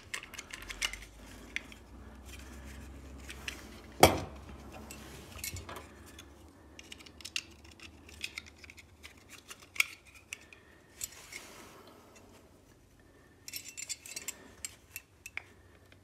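A GM seatbelt buckle being handled and pressed together, the plastic cover going over the chrome metal latch: scattered small clicks and clinks of plastic and metal, with one sharp click about four seconds in and a quick run of small clicks near the end.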